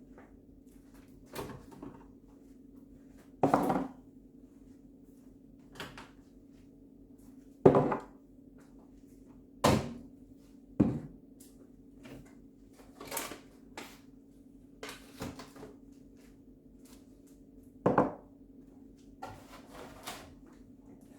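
Food containers, shelves and drawers being handled in a fridge: a dozen or so scattered knocks and clunks, the loudest a little before the middle and near the end, over a steady low hum.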